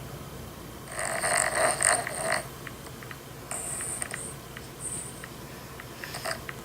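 A person snoring in raspy breaths: one long snore about a second in, then several shorter, irregular ones.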